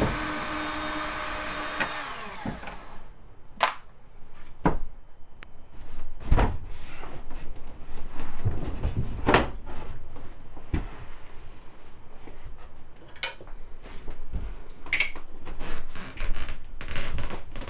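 A power tool's motor whines steadily and winds down about two seconds in. Then come scattered knocks and clatter of wooden dinette frame pieces and boards being pulled apart and handled.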